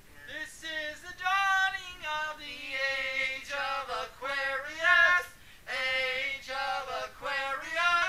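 Women singing in drawn-out phrases with swooping pitch, breaking off briefly about four and about five and a half seconds in.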